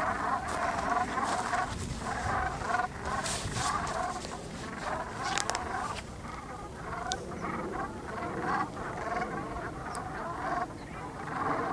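A large flock of Canada geese on the water, honking and calling continuously in many overlapping calls.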